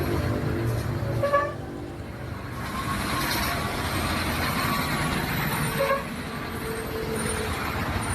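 Bus 'telolet basuri' multi-tone horn sounding a held chord for about the first second, cut off abruptly. Then engine and traffic noise, with a few short horn notes.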